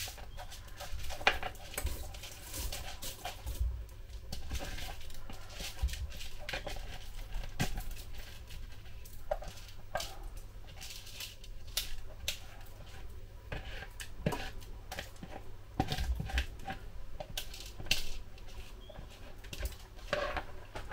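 Dry long-grain rice pouring from a bowl into a cooking pan, the grains pattering in an irregular run of small clicks, with a spoon scraping and tapping against the bowl.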